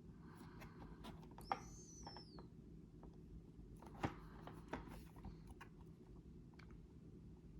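Faint handling noises: scattered light clicks and rustles, with two sharper clicks about a second and a half and four seconds in, and a short high squeak that falls in pitch near the two-second mark.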